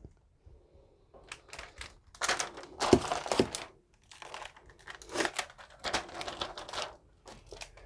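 Hard plastic CGC comic book slabs being handled and swapped: crinkly plastic rustling with light clicks in irregular bursts, loudest about three seconds in.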